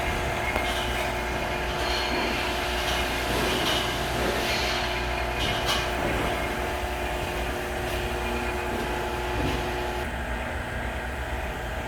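Steady machine hum with a low rumble and a few steady tones, one of which cuts off about ten seconds in; a few light knocks and rattles in the middle.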